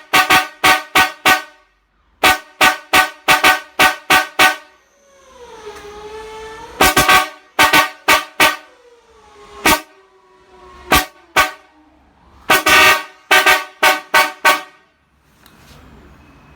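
A set of four car horns, two low-pitched and two high-pitched, sounding together in groups of short, rapid toots in rhythmic 'çat çat' patterns, with short pauses between the groups, after their cleaning and sound adjustment. Between the groups a softer, longer tone sags and rises in pitch, and the toots stop near the end.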